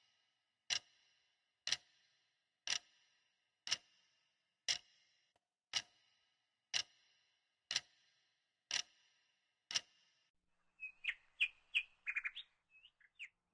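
A clock ticking once a second, ten sharp ticks, which stop about ten seconds in; then a bird gives a few short chirps near the end.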